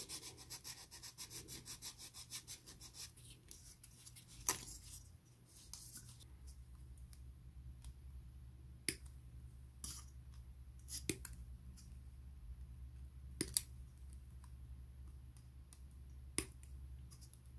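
A sanding sponge rubbed quickly back and forth over a plastic model-kit part, about four strokes a second, for the first few seconds. Then hobby side cutters clip parts off a plastic runner, a handful of sharp clicks spaced a second or more apart.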